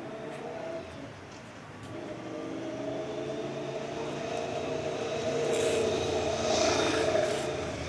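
A large vehicle passing in city traffic: a steady motor hum with a whine over it, swelling to its loudest about six to seven seconds in, then easing slightly.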